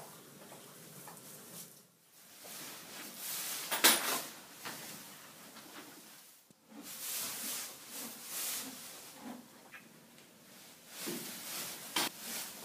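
Straw bedding rustling in several bursts as a newborn foal and its mare shift in the stall, with a sharp knock about four seconds in and another near the end.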